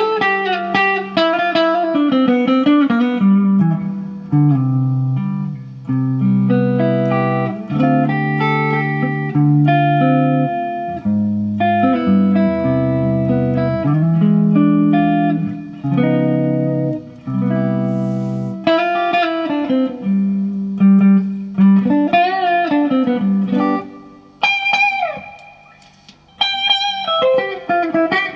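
Gibson Les Paul electric guitar played through an amp, a solo melodic line of single notes. Held low notes give way to higher phrases with string bends, with a short pause about three quarters of the way through.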